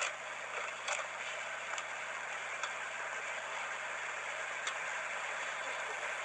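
Steady hiss and a low hum from a webcam microphone, with a few faint clicks.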